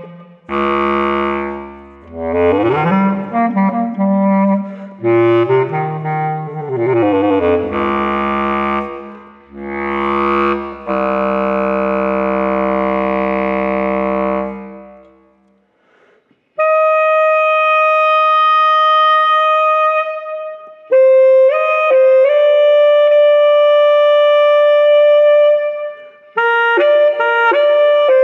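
Solo bass clarinet playing unaccompanied: low phrases with sliding pitch for the first half, a short pause near the middle, then long held high notes and a few quick runs of notes near the end.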